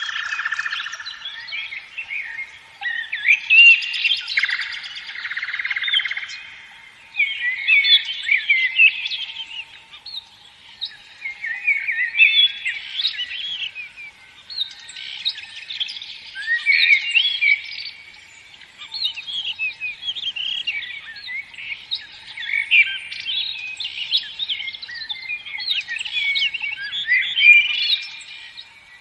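Songbirds singing in a dense run of quick chirps and trills, in phrases a few seconds long with short pauses between them.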